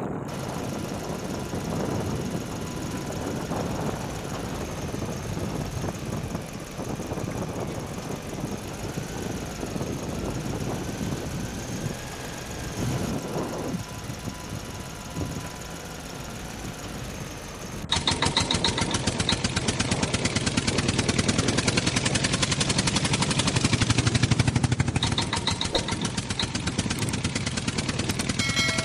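Surf washing, with wind on the microphone. About two-thirds of the way in, it switches abruptly to a louder engine sound with a rapid, even pulse: an added engine sound effect, since the toy vehicles are only pulled by a string.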